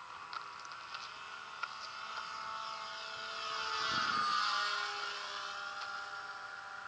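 Propeller motor of a radio-controlled X8 flying wing whining as the plane makes a low pass. It grows louder to a peak about four seconds in, then drops in pitch and fades as the plane flies away.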